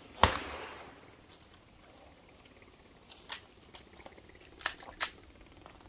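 A 9mm pistol shot about a quarter second in: a sharp crack with a decaying echo lasting about half a second. Three fainter sharp clicks or cracks come later, two of them close together near the end.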